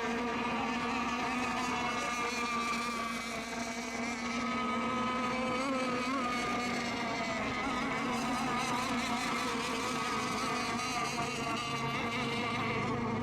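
Several radio-controlled racing boats running together on the course, their motors making a steady, overlapping high-pitched whine whose pitch wavers slightly.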